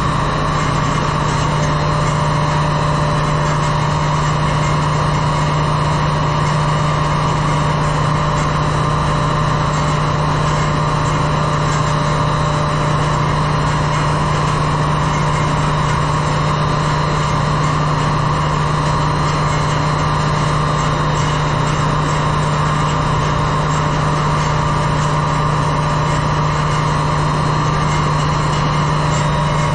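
Loud, steady drone of ship's engine-room machinery running, with a strong low hum and a higher whine that never change.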